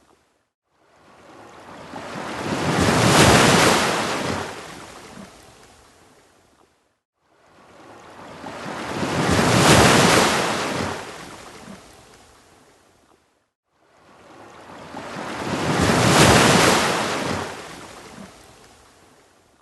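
Ocean waves surging onto a beach: three waves, each building to a loud rush and then fading out. They come about every six and a half seconds, with a moment of complete silence between them.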